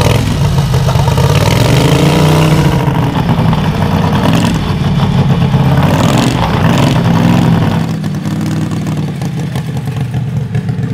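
Modified Predator 670cc V-twin engine of a racing lawn mower running hard under way, its pitch rising and falling as the throttle is opened and eased. It backs off a little about eight seconds in.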